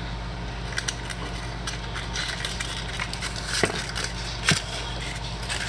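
Microwave oven running with a steady low hum, with a few light clicks and two sharper knocks about two-thirds of the way through.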